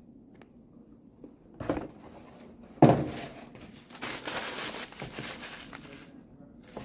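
Takeout food packaging being handled: a sharp knock about three seconds in, then a couple of seconds of wrapper crinkling.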